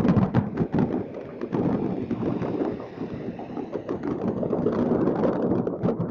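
Many distant fireworks going off at once, a continuous crackle of pops and bangs over a low rumbling din. The bangs thin out briefly about halfway through, then pick up again.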